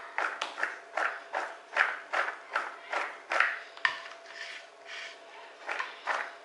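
Par-boiled potato sticks being shaken and tossed in a plastic colander to coat them with oil and pepper: rhythmic swishing and rattling strokes about two to three a second, with a sharp click about four seconds in and a brief lull before the shaking resumes near the end.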